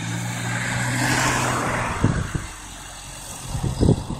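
Diesel engine of a John Deere 310SK backhoe loader running steadily, with a car passing on the road about a second in. From about two seconds in, irregular low thumps and knocks come in, loudest near the end.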